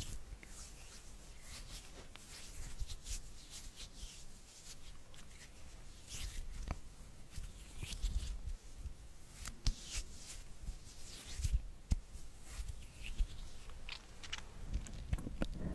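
Close-miked ASMR trigger sounds: an irregular run of soft, crackly scratches and a few sharp clicks right at the microphone, over a low rumble.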